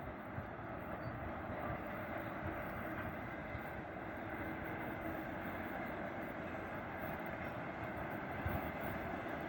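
3ES5K 'Yermak' electric locomotive hauling a freight train, heard approaching as a steady rumble with a faint whine that grows slightly louder.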